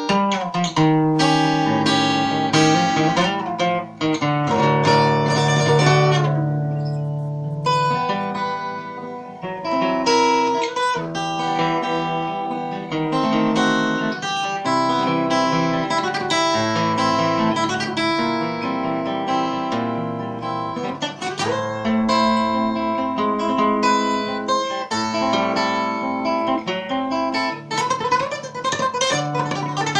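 Solo acoustic guitar playing a flamenco-style piece, with many quick plucked notes and chords.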